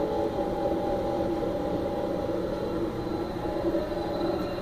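Emrax 228 axial-flux electric motor spinning on a test bench under its controller, a steady electric whine of several pitches over a low rumble as the speed profile winds down; the highest tone fades about two and a half seconds in.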